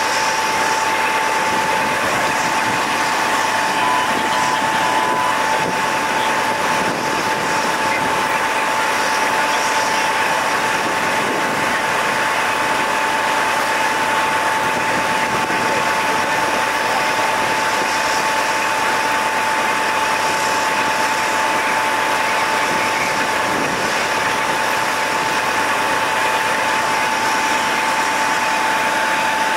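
Steady running hum of idling engines or equipment, carrying a constant high-pitched whine, with three short pulses in the whine about four seconds in.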